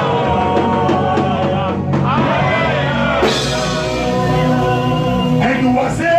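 Worship music: singing with long held notes over instrumental accompaniment and a steady bass.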